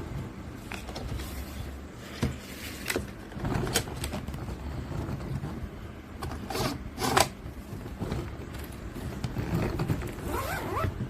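A hard-shell ABS/PC spinner suitcase being handled: scattered clicks and knocks, two louder rasping scrapes about halfway through, and short rising zip-like scrapes near the end.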